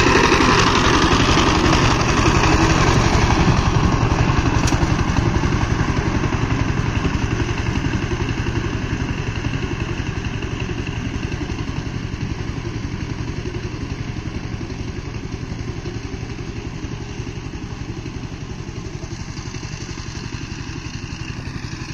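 Two-wheel power tiller's single-cylinder diesel engine running steadily under load as it tills dry soil, a rapid even thudding pulse that gradually grows fainter.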